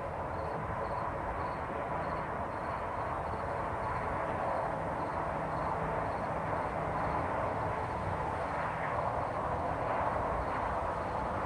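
Wind blowing steadily, a rushing noise with low gusts buffeting the microphone. A faint high chirp repeats about two or three times a second through the first half.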